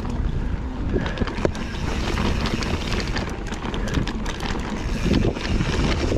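Mountain bike riding on a dirt trail: a steady rush of wind on the microphone over tyre noise, with frequent sharp clicks and rattles from the bike.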